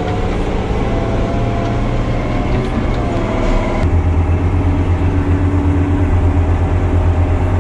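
Diesel engine of a loaded off-road haul truck running hard as it drives, heard inside the cab. About four seconds in the engine note turns louder and pulsing.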